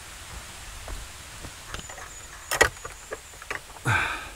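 Footsteps on a stony path, then a single sharp knock and a short squeak near the end as a wooden gate with a metal latch is handled.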